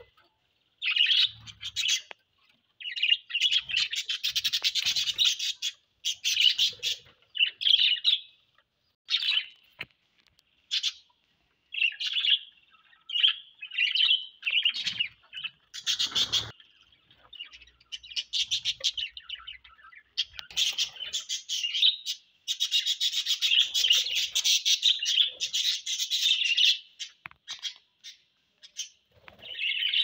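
A flock of budgerigars chattering and warbling in bursts of rapid chirps, with short pauses between; the longest, busiest runs come a few seconds in and again past the middle.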